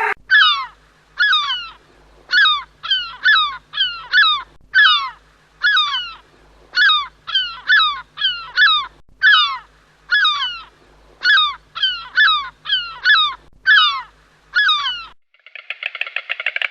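An animal calling over and over: about twenty short, loud calls, each sliding steeply down in pitch. The calls stop near the end, and a different buzzing rattle begins.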